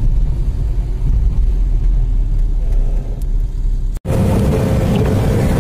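Low, steady rumble of a vehicle driving on a highway, heard from inside the cabin. About four seconds in the sound cuts off abruptly and switches to a brighter, noisier ride sound with a faint steady hum.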